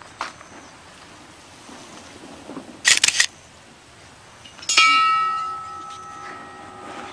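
Film camera shutter firing about three seconds in, a quick cluster of sharp clicks. Then a hanging bell is struck and rings on, its several steady tones fading slowly.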